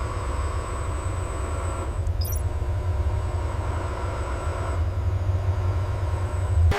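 A steady low rumble with a faint, thin high-pitched whine over it.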